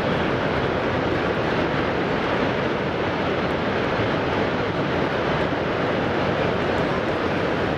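Niagara Falls: heavy water pouring over the brink, a steady, even rush that does not let up.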